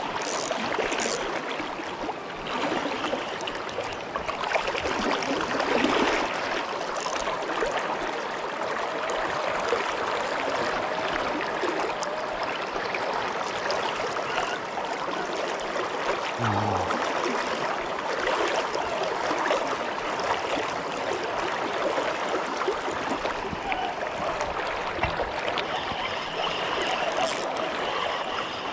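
River current flowing steadily, an even rush of moving water.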